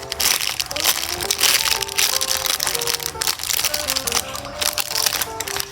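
Background music with a simple, light melody over irregular crinkling and crackling as squishy toys are handled.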